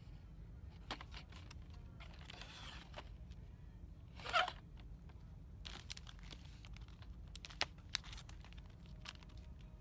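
Scattered light clicks and rustles, with one short, louder rustle about four seconds in, over a low steady hum.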